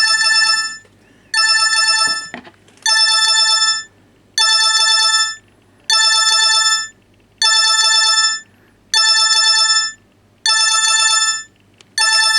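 Explay BM10 mobile phone's alarm tone: an electronic ring played in short bursts of just under a second, repeating nine times about every second and a half, the last one cut short.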